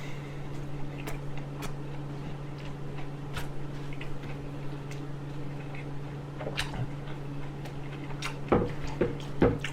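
Scattered wet clicks and smacks of someone chewing food close to a clip-on microphone, over a steady low hum, with a cluster of louder smacks near the end.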